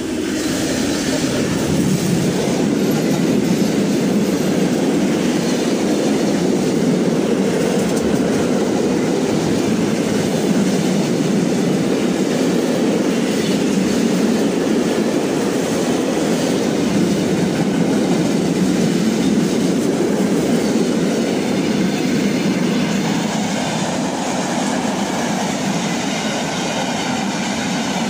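Long freight train passing at speed behind a diesel locomotive: a loud, steady rumble and clatter of the wagons' wheels on the rails that starts as the locomotive goes by and eases slightly near the end.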